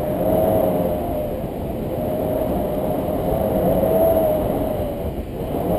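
Wind rushing and buffeting over an action camera's microphone in flight under a paraglider, with a wavering whistle-like tone running through it.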